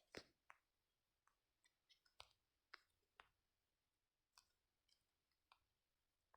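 Near silence with a few faint, sharp clicks in the first three seconds or so.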